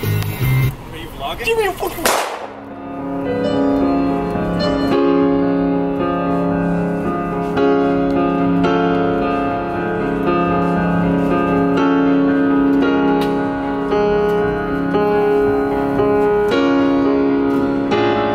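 Electric stage piano played in slow, held chords, starting about two seconds in. Before that, a different piece of music ends with a quick sweeping glide.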